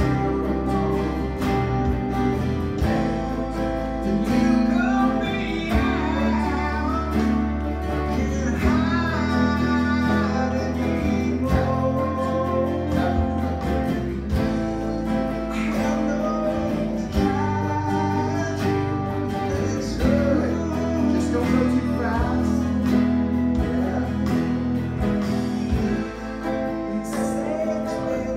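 A recorded rock song in 6/8 with a male singer, played back slowed to 88% of full speed, with an electric guitar strummed along to it.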